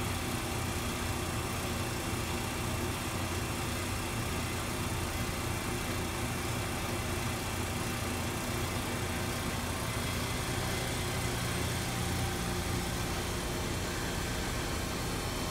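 RAS 74.25 CNC sheet-metal folding machine running idle, giving a steady low mechanical hum that holds level throughout with no strokes or bangs.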